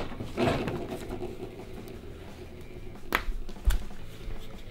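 Small plastic handling sounds as the yellow toy capsule from a Kinder Surprise egg is pried open, with one sharp click about three seconds in as the halves snap apart.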